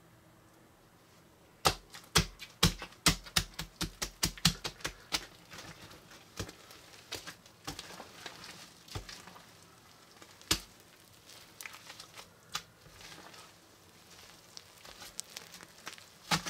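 Hands squeezing and kneading a large lump of floam, slime packed with tiny foam beads, the beads crackling and popping in quick sharp clicks. The clicks start about a second and a half in, come thickest over the next few seconds, then thin out to scattered crackles.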